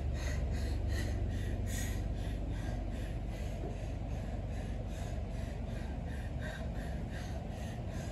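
A person breathing hard and fast after a heavy lifting effort, quick rhythmic breaths about two or three a second that ease off and grow fainter toward the end.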